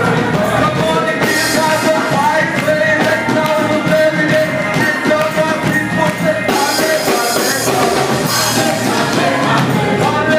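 Gospel vocal group singing with music, voices holding and sliding between sustained notes.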